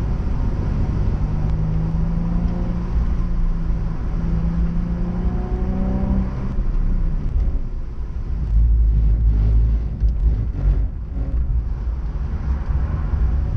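Nissan 350Z's 3.5-litre V6 pulling hard, its pitch climbing over the first six seconds, then dropping away about six and a half seconds in as the throttle comes off; a deep low rumble follows with a few short knocks.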